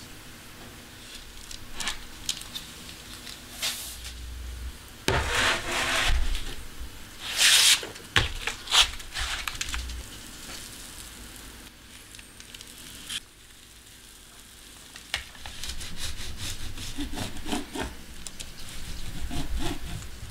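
Kitchen utensils handled during baking prep: irregular rubbing and scraping, loudest in a cluster about a third of the way in, with a few sharp clicks.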